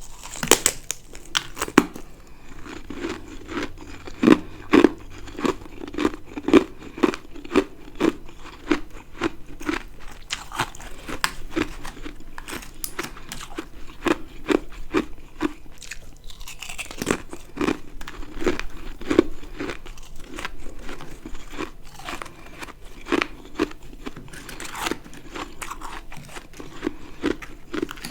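Ice being bitten and chewed close to the microphone: a sharp, crackly bite about half a second in, then chewing at roughly two crunches a second, with fresh bites around the middle and again near the end.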